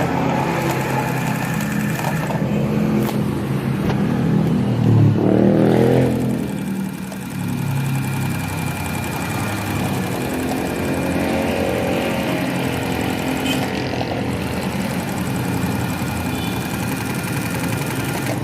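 Small electric motor of a portable sewing machine running steadily after servicing, with a cleaned armature and new carbon brushes. Its speed rises and falls about five seconds in and again briefly near the middle.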